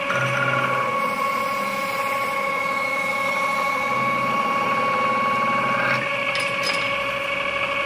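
Metal-spinning lathe running with a steady whine while a hand-held spinning tool presses into a rotating copper tube, forming a neck in it. A few light clicks come near the end.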